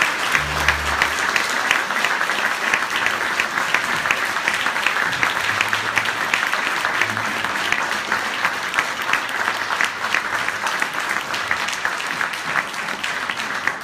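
Audience applause in an auditorium: dense, steady clapping from many hands.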